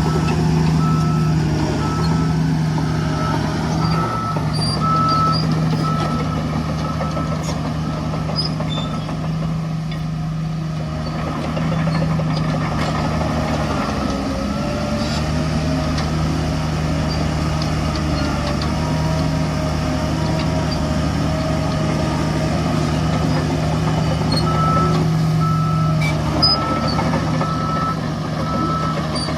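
Heavy earthmoving machines' diesel engines running steadily, with a reversing alarm beeping at a regular pace for the first few seconds and again near the end.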